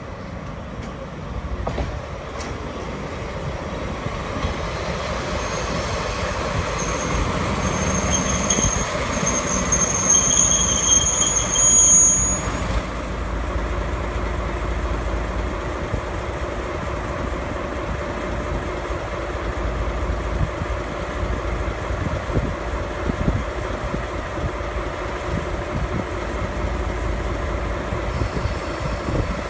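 JR Freight DE10 diesel locomotive pulling in slowly and braking to a stop. A high brake squeal sounds from about seven seconds in and cuts off suddenly a little past twelve seconds as the train halts, after which the engine runs steadily at idle.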